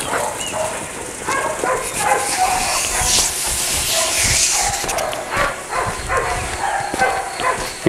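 Dog barking and yipping over and over in short, quick calls, over a background hiss.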